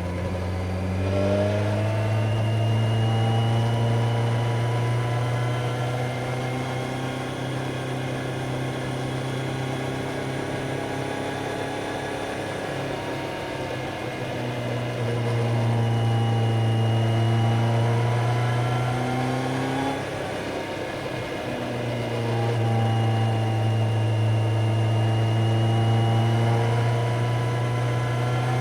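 Kawasaki Z900's inline-four engine pulling on the road. Its pitch rises about a second in and holds at steady revs, then eases off and picks up again twice in the second half, as the throttle is rolled off and back on.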